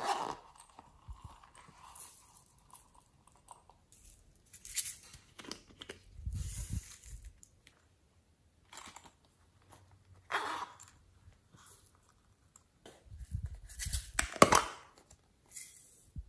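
Close-up handling of small silicone and plastic toys: a silicone pop-it pouch's zipper worked at the start, then scattered rustles, clicks and rubbing, with louder low bumps about six seconds in and again near the end.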